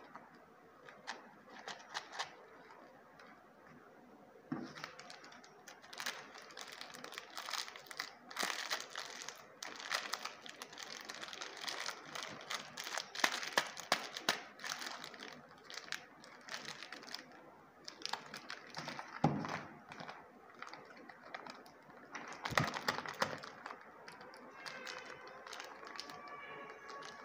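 Plastic and foil candy wrappers crinkling as they are handled and turned over: chocolate cone wrappers, a wafer stick and a wafer bar. The crackles come in irregular bunches.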